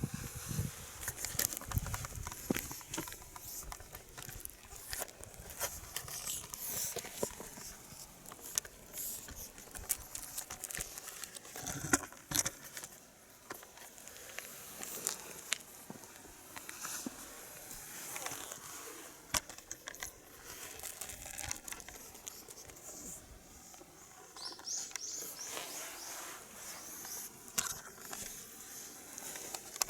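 Kittens at play: scattered light pattering, scuffing and clicks of small paws and a toy moving about, with a few sharper knocks.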